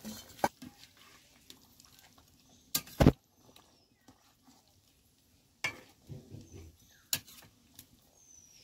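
Long metal spoon stirring a pot of fish curry in a two-handled metal wok, giving several sharp knocks against the pan, the loudest a quick pair about three seconds in.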